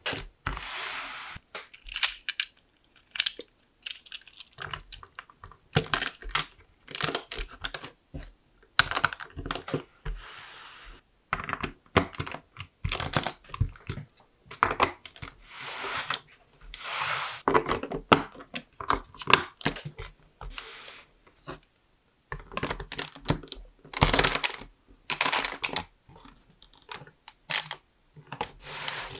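LEGO plastic bricks and plates being handled and pressed together: a long run of irregular clicks, snaps and rattles of hard plastic.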